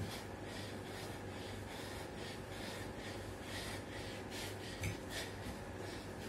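A man breathing hard and fast through nose and mouth while doing push-ups, about two sharp breaths a second, from the exertion of the exercise. A low steady hum runs underneath.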